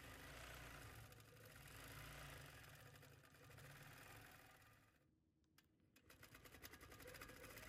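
Faint longarm quilting machine stitching: a low, steady hum that drops away about five seconds in, then picks back up with rapid, even needle ticking near the end.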